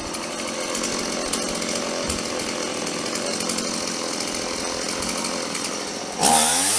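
Stihl two-stroke chainsaw running steadily, then throttled up sharply and much louder, its pitch rising, near the end.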